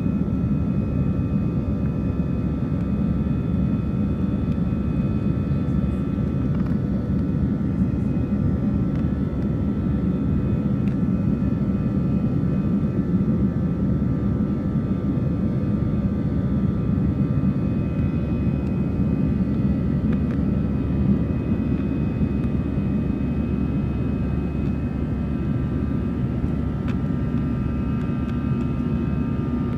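Steady cabin noise of a jet airliner climbing after take-off: a deep, even drone of engines and airflow heard from inside the cabin, with a few faint steady whining tones above it.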